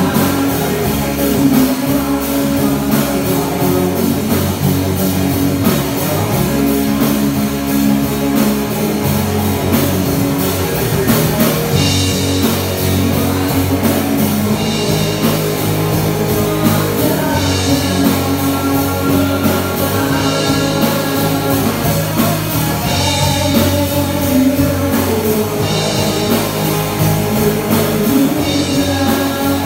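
Rock band playing live: electric guitar, electric bass and drum kit, with a male voice singing. From about midway, a cymbal crash comes about every three seconds.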